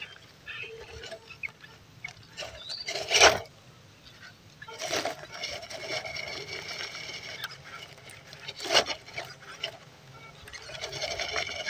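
Small electric RC crawler drivetrain, a 260-size brushed motor and geared axles, whining steadily as the scale truck crawls over a log. Two sharp, loud knocks or scrapes come a few seconds in and again near the end.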